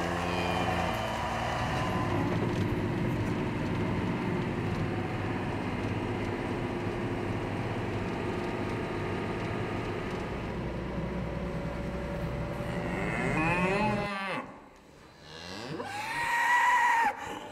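Dairy cows mooing over a steady machine hum. The hum drops away about fourteen seconds in, and a single moo that rises and falls comes near the end.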